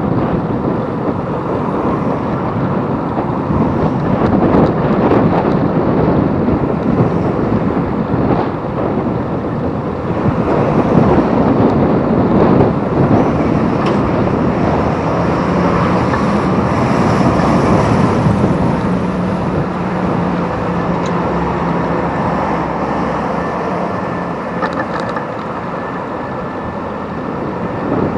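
Wind rushing over a handlebar camera's microphone while cycling, mixed with the noise of passing road traffic; a vehicle's engine hum stands out for a few seconds past the middle.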